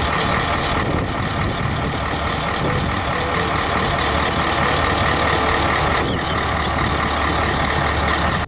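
Diesel engine of a three-axle dump truck running steadily while the hydraulics raise its tipper body, a constant low hum under an even hiss.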